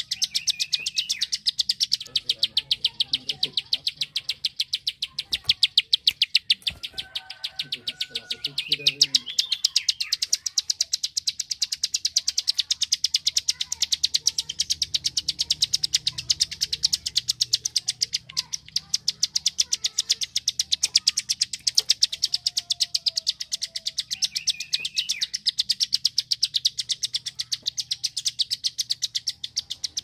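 Prinia (prenjak sawah) giving its rapid 'klik klik' call: a dense, unbroken run of short, high clicking notes, many to the second.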